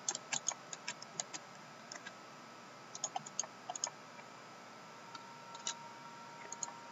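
Computer keyboard keystrokes: scattered light clicks in short runs, with pauses between.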